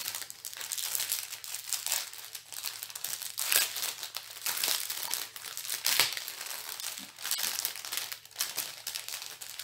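Diamond-painting kit packaging crinkling and rustling as it is handled, with irregular crackles and a sharper one about six seconds in.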